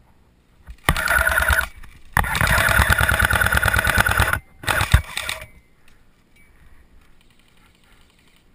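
JG AKS-74u electric airsoft gun firing on full auto: three bursts of rapid mechanical rattle over the gearbox motor's whine, a short one, a long one of about two seconds, then another short one.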